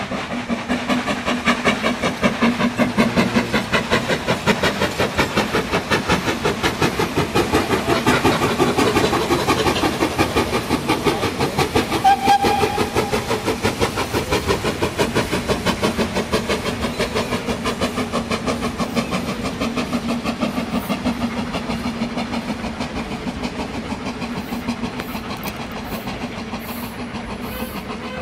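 Steam locomotive hauling a train of coaches past at speed: a fast, steady rhythm of exhaust beats and wheel clatter. It grows to its loudest in the first half, then fades steadily as the train draws away, with a brief high note near the middle.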